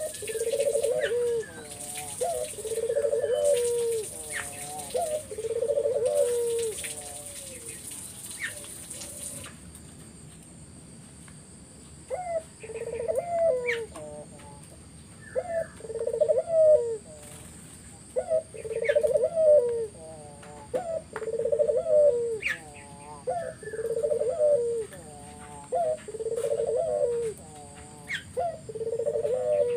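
A puter, a collared dove, cooing over and over in a low, rhythmic series of roughly one-second coos, pausing briefly about a third of the way in. Small birds chirp faintly behind it.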